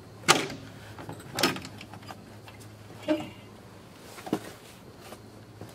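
Lower front cover panel of an RCA TR-70B quadruplex videotape recorder being unlatched and lifted off the cabinet: four sharp knocks and rattles, the first and loudest just after the start.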